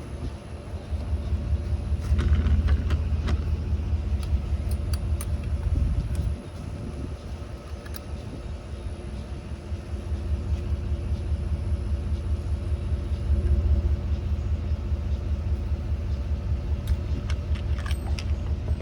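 A steady low rumble of an idling engine, with a few light metallic clicks of small parts being handled around two seconds in and again near the end.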